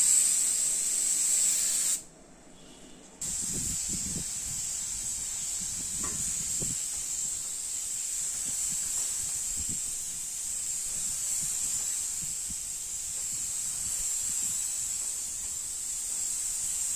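Compressed-air gravity-feed spray gun spraying metallic car paint: a steady high hiss of air and atomised paint, which breaks off for about a second about two seconds in.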